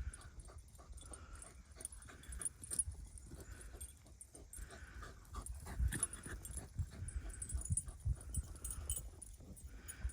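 Dog whimpering softly, over and over, about once a second, over a low rumble and scattered small knocks and rustles.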